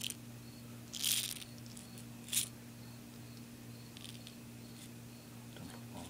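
A cut-down 12-gauge shotgun shell and its plastic wad being handled, with loose shot pellets rattling briefly about a second in, then a single sharp click about a second later.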